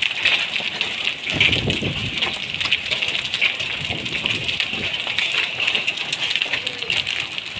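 Hailstorm: rain and hail falling steadily, an even hiss full of many small sharp ticks as hailstones strike the road and surroundings. A brief low rumble comes in about a second and a half in.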